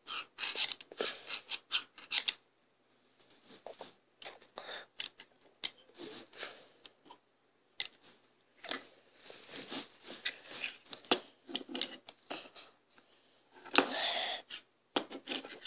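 Plastic Lego bricks clicking and rustling as a small brick model is handled close to the microphone: a run of irregular sharp clicks, with a louder cluster near the end.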